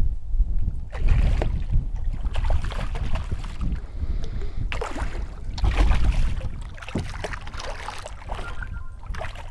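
Hooked redfish thrashing and splashing at the surface beside a kayak, in several short bursts, over a steady low rumble of wind on the microphone.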